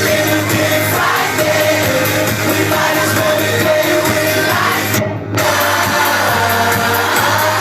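A loud live pop band playing with singing, heard through a phone's microphone. The sound drops out briefly about five seconds in.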